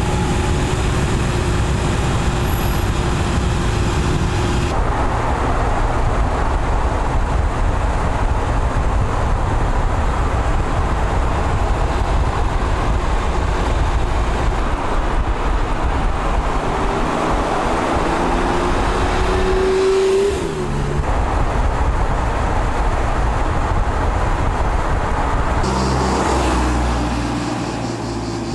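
Porsche 911 Speedster (997)'s 3.8-litre flat-six running at speed, mixed with road and wind noise. It changes abruptly several times, and near the middle one pitch rises for a few seconds before cutting off.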